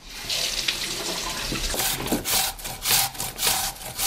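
Water running from a kitchen tap for a little under two seconds, then apple being grated by hand on a box grater in repeated scraping strokes, about two a second.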